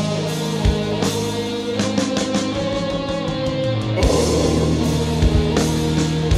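Czech melodic doom-death metal without vocals: slow, held guitar chords over a few sparse drum hits, with the chord changing about four seconds in.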